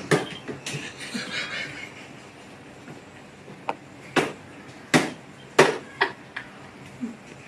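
Several sharp knocks and taps, a few of them loud, coming mostly in quick succession from about four seconds in, over a faint room hiss.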